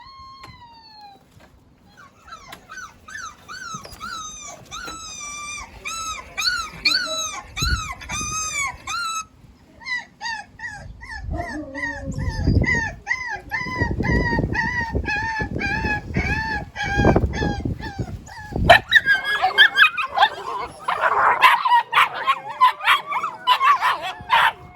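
Husky puppies whining and yelping, played back as a sound effect: quick repeated rising-and-falling cries that stop abruptly about a third of the way in, then resume with scuffling underneath. Near the end the sound grows louder and denser, with sharp clicks and yelps and barks mixed in.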